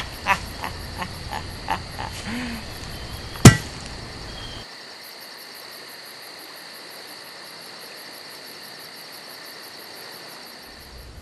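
Steady high trilling of insects such as crickets. Over it come a quick run of sharp knocks in the first two seconds and one loud thump about three and a half seconds in.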